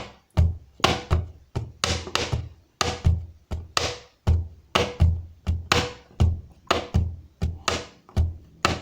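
Table drumming in a steady rhythm of about two to three strikes a second: a closed hand thumping the tabletop for the low note, alternating with a pen tapping the table for the sharp high note.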